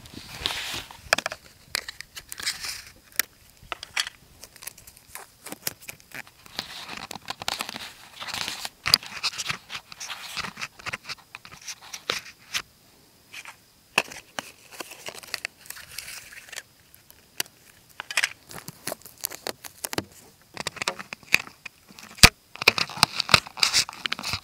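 Handling noise: sweatshirt fabric rubbing and crinkling against the camera's microphone, with irregular crackles and clicks that come thicker near the end.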